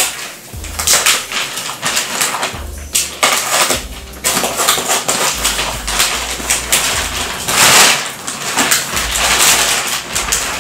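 Clear plastic mattress wrapping crinkling and rustling loudly in irregular bursts as it is pulled and cut away, with some dull low thumps underneath.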